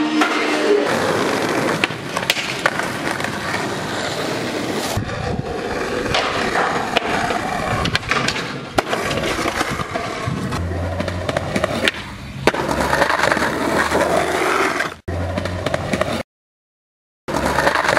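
Skateboards rolling on concrete and asphalt, the wheels giving a steady rumble, with sharp clacks of tail pops and boards landing from flip tricks over a string of short clips. The sound drops out to silence for about a second near the end.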